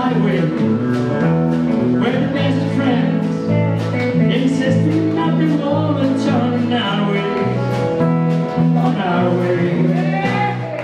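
Live country band playing: acoustic and electric guitars and drums, with several voices singing together over them.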